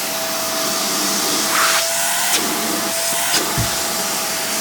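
Hoover React Professional Pet Plus UH73220 upright vacuum running with a steady whine over rushing suction air, drawing through its released extension wand. The air rush changes briefly a couple of times, and there is a short low bump a little past halfway.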